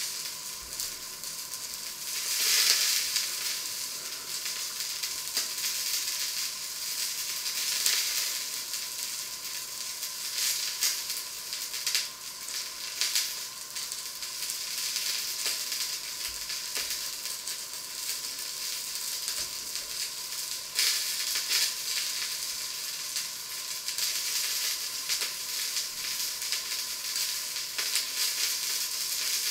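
Food sizzling and crackling as it fries in a pan under a splatter screen, a steady hiss full of small spits that grows louder a few times.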